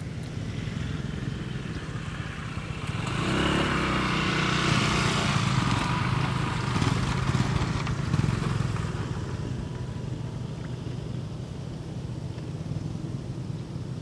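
A motor vehicle's engine passing by. It hums steadily, grows louder about three seconds in, is loudest in the middle and fades away by about ten seconds.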